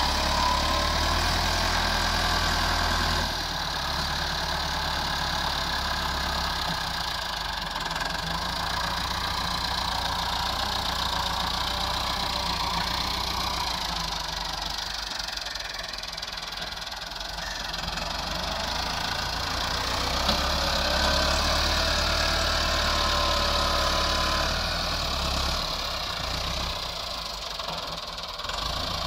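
Massey Ferguson 385 tractor's four-cylinder diesel engine running steadily while it works the field with a rear implement, with a wavering mechanical whine over the engine. It grows louder twice as the tractor comes nearer.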